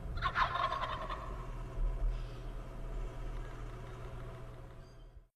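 Wild turkey gobbling once, a rapid rattling call about a second long, over a steady low hum.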